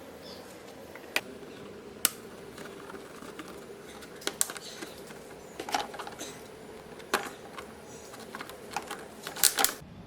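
Irregular clicks and knocks of hard plastic parts being handled and fitted as a car's air filter box is put back in place, with a quick cluster of louder knocks near the end, over a faint steady hum.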